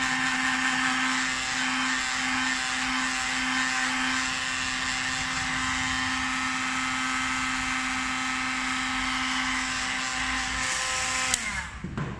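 An electric motor running with a steady whine, which slides down in pitch and stops about eleven seconds in, with a click as it cuts off.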